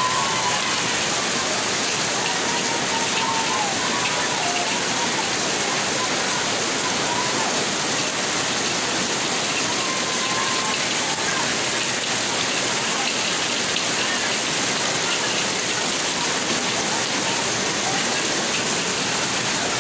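Heavy rain pouring down steadily, a dense, even hiss of rain on roofs, umbrellas and a flooded street, with no let-up.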